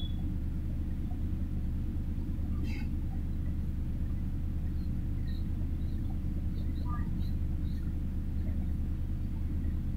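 Steady low background rumble, with a few faint, short, high chirps or squeaks.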